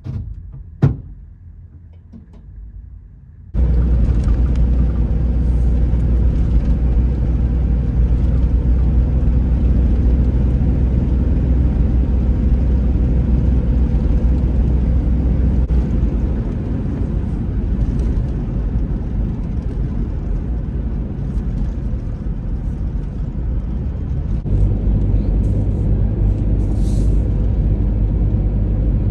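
Inside the cabin of a 1999 Chevy Astro van driving along a highway: a steady low rumble of engine and road noise that starts abruptly about three and a half seconds in. Before it there is a quiet stretch with a single sharp click.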